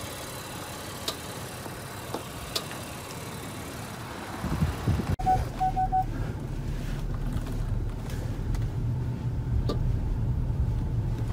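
Low, steady rumble inside the cabin of a 2022 Acura MDX, with four short electronic chime beeps about five seconds in. A single sharp click comes just before the end: the drivetrain click-clunk this new MDX makes when the steering wheel is turned, which a replaced axle did not cure.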